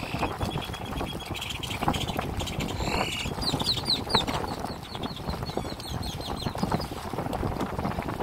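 Birds calling from a heron and egret colony over the steady noise of a boat's motor and water. About three and a half seconds in comes a quick run of short, high chirps lasting a few seconds.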